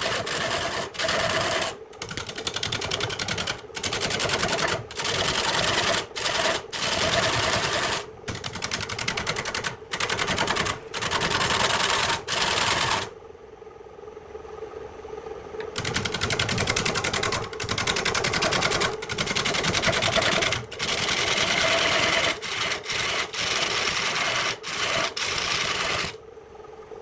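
Wood lathe running while a turning tool cuts into the spinning wood, in stretches of a second or two broken by short pauses as the tool comes off the work. A steady motor hum runs under the cutting, which drops away for a few seconds about halfway through.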